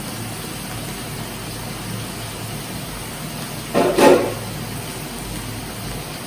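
Sliced mushrooms frying in hot oil in a steel pan on a gas stove: a steady sizzling hiss. A short, louder sound about four seconds in.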